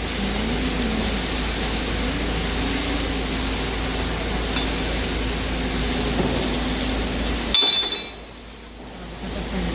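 Steady machine noise with a low, slightly wavering hum. A single sharp metallic clink about seven and a half seconds in, after which the noise drops away for a second or two and then comes back.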